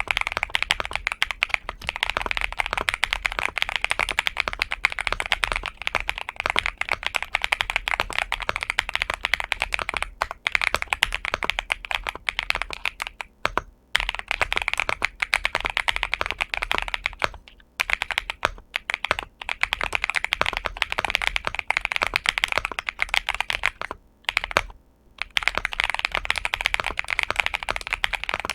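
Continuous fast typing on a XINMENG M75 Pro mechanical keyboard with Dark Plum switches, a dense run of key clicks broken by a few short pauses.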